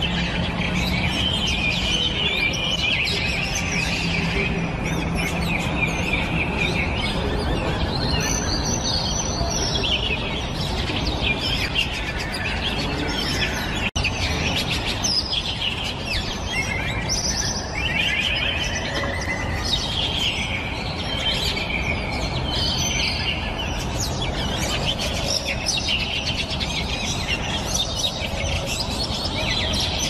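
Birds chirping and calling almost without pause, over a steady background noise, with a brief break in the sound about halfway through.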